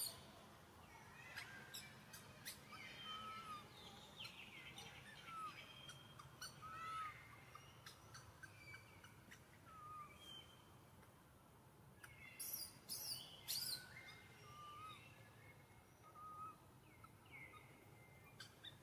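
Faint birdsong in woodland: short chirps and whistled notes, repeated irregularly. A few sharp clicks come about two-thirds of the way in.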